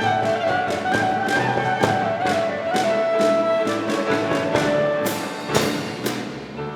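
Klezmer band of violin, clarinet, percussion, piano and acoustic bass playing: a held melody line over steady drum beats, with two loud crash strikes near the end before the music fades out.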